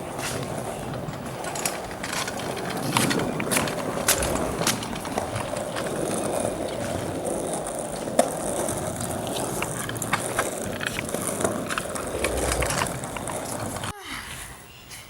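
Kick scooter wheels rolling over pavement: a steady rumble with frequent clicks and rattles. It cuts off suddenly near the end.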